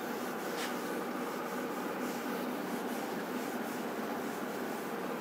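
Whiteboard eraser rubbing across a whiteboard, wiping off marker writing in repeated strokes.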